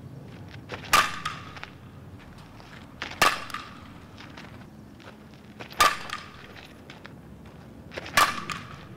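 Softball bat hitting pitched balls four times, about two and a half seconds apart; each hit is a sharp crack followed by a short ringing tone.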